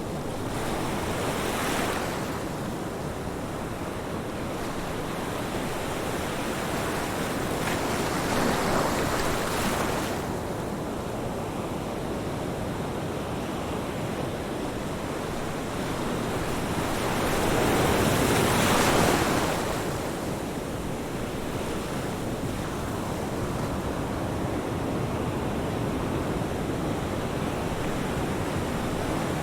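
Ocean surf: a steady wash of breaking waves, with three swells as waves break, the loudest about two-thirds of the way through.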